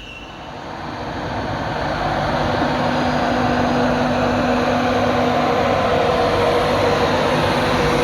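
A train running through the station, growing louder over the first two seconds and then holding steady. A couple of steady low hums sit under the rumble.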